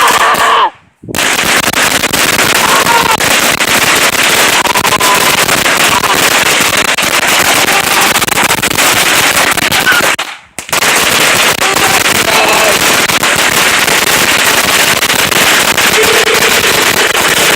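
A long string of 2,000 firecrackers going off in a loud, rapid, continuous crackle of bangs. The sound cuts out briefly twice, about a second in and again about ten seconds in.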